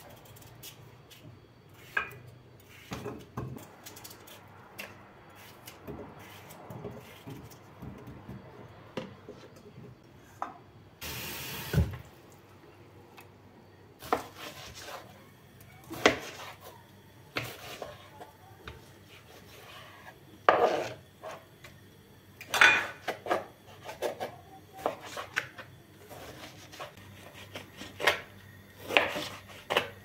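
Kitchen prep sounds: potato pieces cut with a knife and dropped into a stainless steel pot of water, then a large chef's knife slicing raw chicken breast on a wooden cutting board, the blade knocking against the wood in irregular strokes. A brief rush of noise comes about eleven seconds in.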